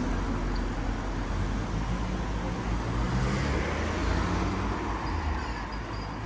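Cars driving past on the street, engine and tyre noise. One passes close about three to four seconds in, where the sound peaks, then fades as it drives away.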